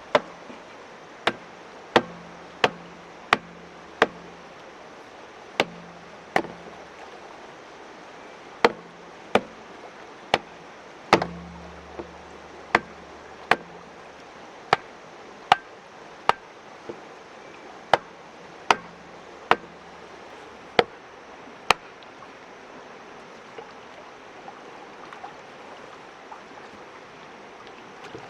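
Blade chopping on a hard surface: an irregular run of sharp chops, often in twos and threes less than a second apart, some followed by a short low ring, stopping about three-quarters of the way through. A steady rush of water runs beneath.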